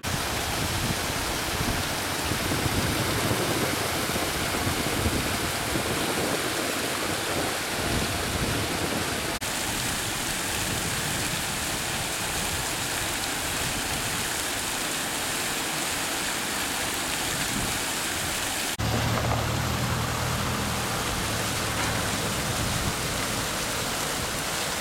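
Paddlewheel aerators churning the water of fish-farm tanks: a steady rushing splash. About two-thirds of the way in, a low steady motor hum joins it.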